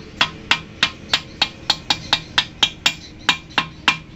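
Mallet tapping a bush into the swingarm pivot of a Hero Honda Hunk: a quick, even run of sharp strikes, about four a second.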